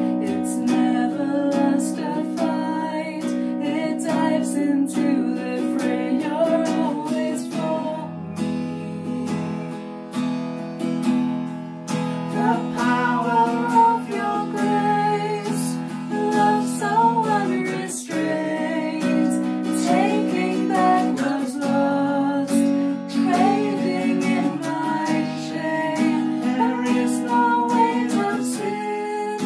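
A woman singing a mellow song, accompanied by a strummed acoustic guitar.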